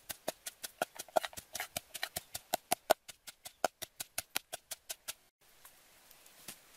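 Wooden pestle pounding in a wooden mortar, a steady run of sharp knocks about five a second, stopping suddenly about five seconds in.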